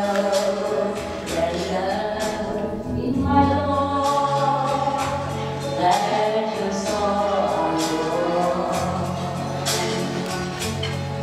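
A woman singing a slow love song over instrumental accompaniment with a bass line and light percussion.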